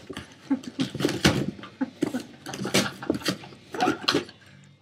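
Boston Terrier clawing and biting at a large cardboard box, an irregular run of scratching, tearing and thumping of the cardboard.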